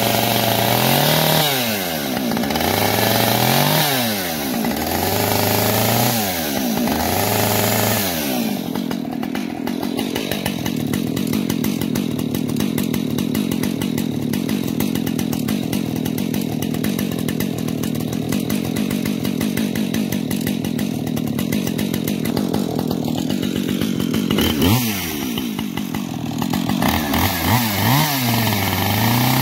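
Husqvarna 545 two-stroke chainsaw carving a pumpkin. It revs up and down about every two seconds, then holds a steady speed for about fifteen seconds, and goes back to revving up and down near the end.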